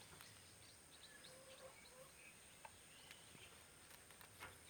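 Near silence, with a few faint bird chirps.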